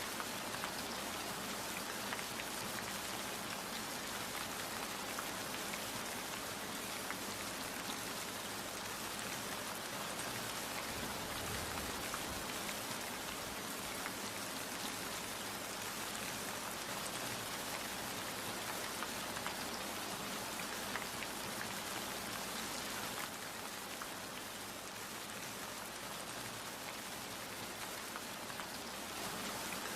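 Steady rainfall, an even hiss with many individual drops heard as small ticks; it becomes slightly quieter about three quarters of the way through, then picks up again near the end.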